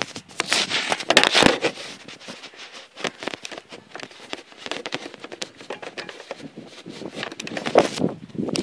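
Irregular crackling and rustling clicks from a handheld phone's microphone being handled and jostled as the camera moves, with a louder rustle about a second in.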